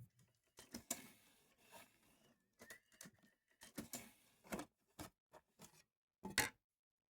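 A few faint, scattered clicks and taps, the strongest a double tap near the end.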